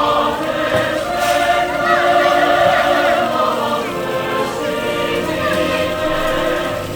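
Background music with several singing voices in a choir-like sound.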